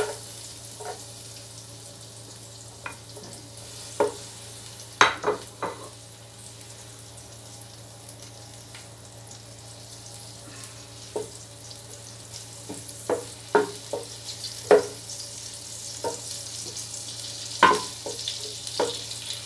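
Chopped garlic sizzling as it sautés in melted butter in an aluminium pot. A wooden spoon knocks and scrapes against the pot and plate many times at irregular moments as the garlic is scraped in and stirred.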